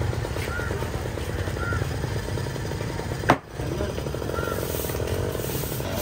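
A steady low engine running, with one sharp knock a little past halfway.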